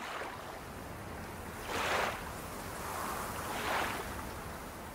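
A soft rushing noise like surf washing in, swelling twice: about two seconds in and again near four seconds.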